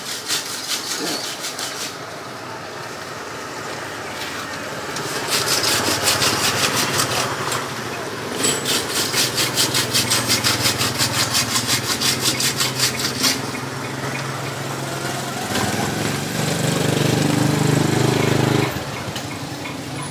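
A small engine running steadily, with a fast, even clatter for several seconds in the middle. The hum grows stronger for a few seconds near the end and then cuts off suddenly.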